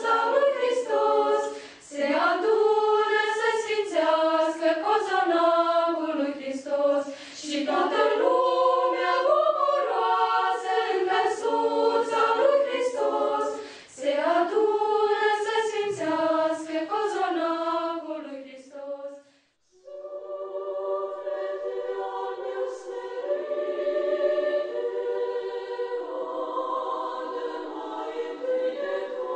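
Girls' choir singing a cappella in several parts, phrase by phrase with short pauses for breath. About two-thirds of the way through the singing breaks off abruptly, and a softer, more sustained choral chord passage begins.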